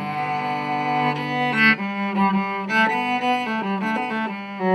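Background music on bowed string instruments, playing held notes that change every half second to a second.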